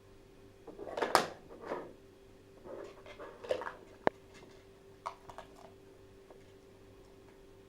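A Papillon working a dog puzzle toy: scattered soft knocks, scrapes and rustles as pieces are pushed about, with a sharp click about four seconds in.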